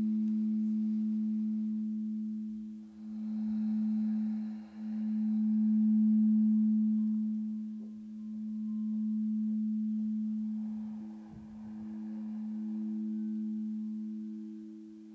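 Singing bowl sounding a steady low hum with a higher overtone, its loudness slowly swelling and dipping every few seconds. A faint hiss comes and goes twice beneath it.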